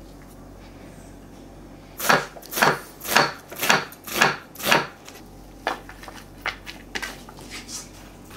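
Kitchen knife chopping on a cutting board during food prep. About two seconds in come six firm strokes about half a second apart, followed by lighter, more irregular cuts.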